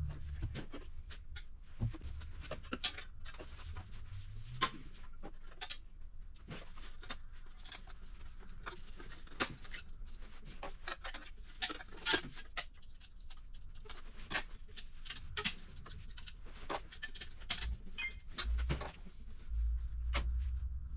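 Snowmobile exhaust springs being unhooked and the pipe handled: many irregular sharp metal clicks and clinks, some louder than others, over a faint low rumble.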